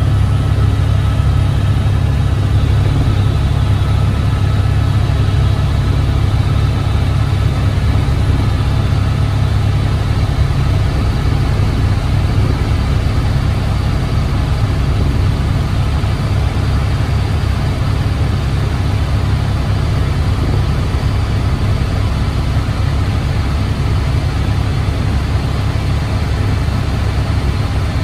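Engine drone, loud and steady at a constant speed, deep and low-pitched.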